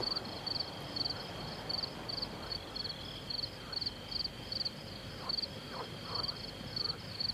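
Crickets chirping evenly, about two or three chirps a second, over a steady high-pitched trill.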